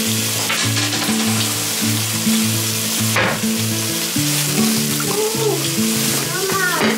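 Bacon sizzling in a frying pan over a gas flame, a steady hiss, under background music with a low, stepping bass line.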